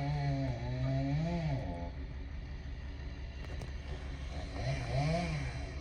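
An engine running steadily, its pitch rising and falling twice.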